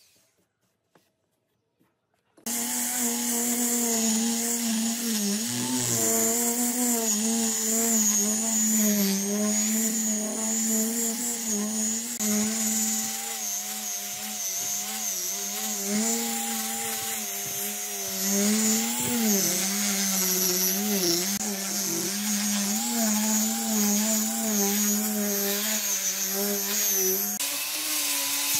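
After about two seconds of near silence, an electric angle grinder fitted with a sanding pad cuts in and runs steadily while sanding a wooden tabletop. Its motor note dips and wobbles under load, and steps slightly higher near the end.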